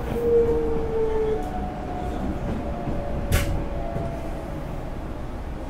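Hankyu 8300 series electric train pulling into a station, heard from inside: the Toyo GTO inverter's falling tone dies away about a second and a half in as the train comes to a stop, then a short air hiss comes about three seconds in, over the steady noise of the car's air conditioning.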